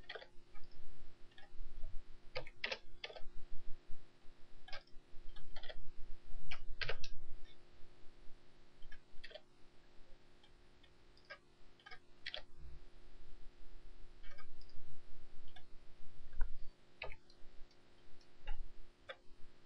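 Computer keyboard keystrokes and mouse clicks, sharp and irregular, with a pause of a few seconds about halfway through.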